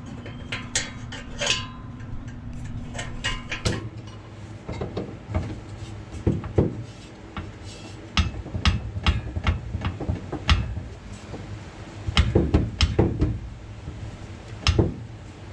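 Irregular metallic clinks and knocks from hand tools and loose hardware being handled during car work under the car, with heavier knocks in clusters near the middle and toward the end. A low steady hum stops about four seconds in.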